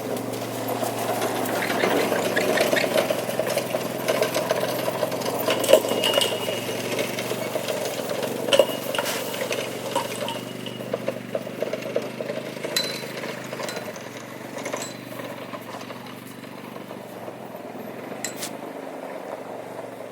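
A vehicle's engine running steadily under scattered knocks and clatter, growing quieter over the last several seconds.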